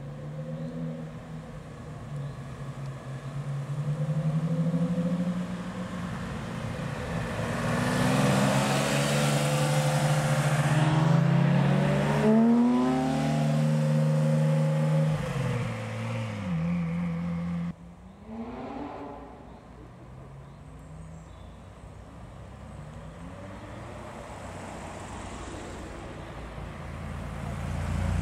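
Porsche 911 flat-six engines as the cars pull away one after another, revs climbing and falling through gear changes. The loudest run is about a third to halfway in; the sound drops off abruptly about two-thirds in, leaving a quieter engine that grows louder again near the end.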